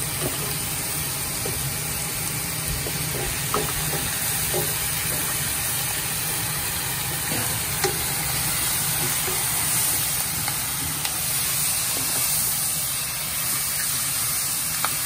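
Raw chicken pieces sizzling as they go into a hot wok of fried potato, onion and curry leaves, stirred with a wooden spatula, with a few light knocks of utensils against the pan. A steady low hum runs underneath.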